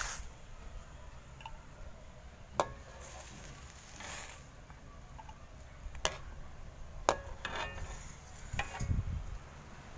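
A long metal spoon scraping and clinking against a metal kadai and a bowl as boiled liver pieces are scooped out of the water, with a few sharp clinks: one about two and a half seconds in, then three more between six and eight seconds.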